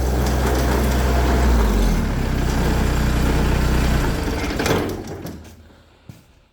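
Massey Ferguson subcompact tractor driving an MK Martin Meteor snowblower, running with a noise from the snowblower's gearbox that the owner takes for a bad bearing. About four seconds in the machine winds down and stops.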